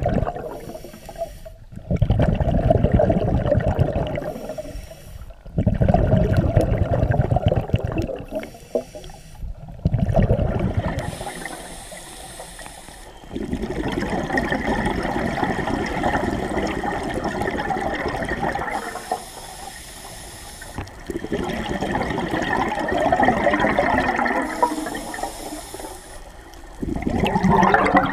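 Scuba diver breathing through a regulator underwater, in a slow repeating cycle. A short hissing inhalation alternates with a longer, louder rush of exhaled bubbles, about six breaths in all, with the later exhalations drawn out longer.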